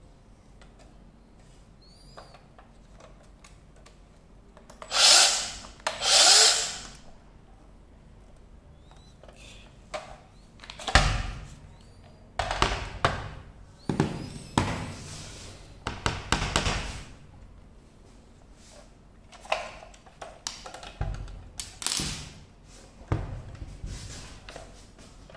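Handling noise from a Makita cordless band saw being turned over and set down on a metal table: two loud scrapes about five seconds in, a thump about eleven seconds in as the battery pack is handled, then irregular clicks and knocks of plastic and metal parts.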